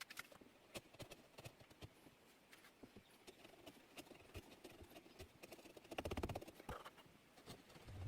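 Light, scattered taps and clicks of hand tools on wood, with a short burst of rapid scraping strokes about six seconds in.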